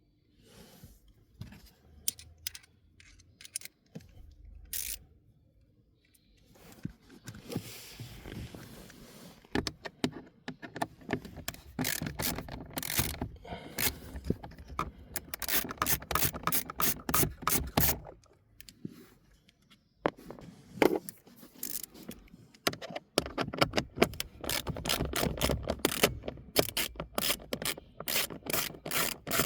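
Ratchet wrench clicking in long rapid runs, with scattered clicks and knocks in the first few seconds and a short pause about two-thirds of the way through.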